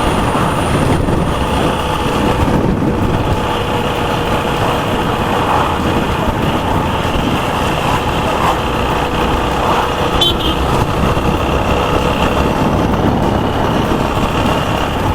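TVS Apache RTR 160 4V's single-cylinder engine running steadily while riding, mixed with a constant rush of road noise.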